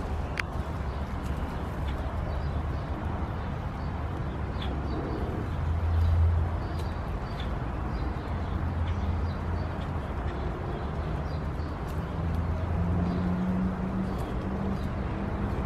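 Outdoor background sound: a steady low rumble that swells briefly about six seconds in, with faint short high chirps here and there.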